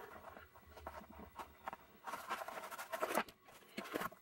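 Hands rubbing and pressing felt strips onto a stiff board insert: irregular scratchy rustling with light knocks, busiest about two seconds in.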